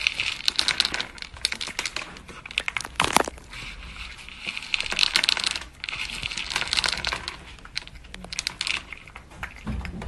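Dry cat kibble clattering and rattling in a plastic bowl as a cat paws and digs through it: a dense, uneven run of small clicks.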